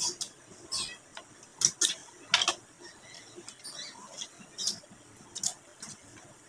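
Mouth sounds of people eating chicken with their hands: irregular wet smacks and clicks of chewing and lip-smacking, roughly eight sharp ones spread across a few seconds.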